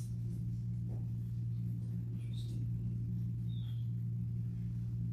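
Steady low hum of room or electrical noise, with a few faint, short, high chirps.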